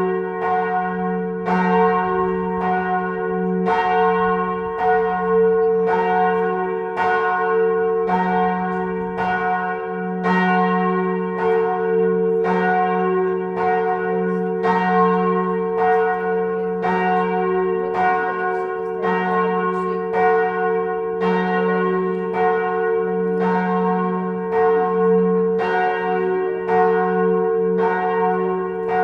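Church bells ringing in a steady, even rhythm of a little more than one stroke a second, each stroke ringing on into the next over a continuous low hum.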